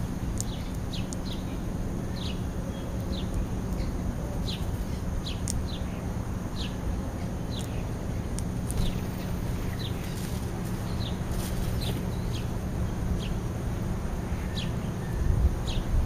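House sparrows chirping: short, high, downward-sliding chirps repeated irregularly, about one or two a second, over a steady low rumble.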